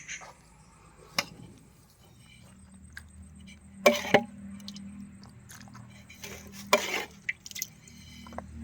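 Metal utensils and dishes clinking a few times, sharp knocks with a short ring, over a faint low steady hum.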